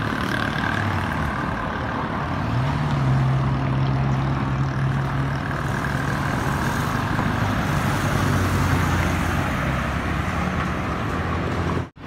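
Road traffic: a steady rush of passing vehicles, with a larger vehicle's engine humming at a steady low pitch that steps up a little a couple of seconds in and drops lower again later. It cuts off abruptly just before the end.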